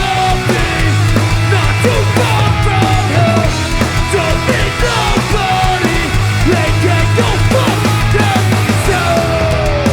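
Hardcore punk band playing live: loud, distorted electric guitars over bass and a drum kit, running steadily without a break.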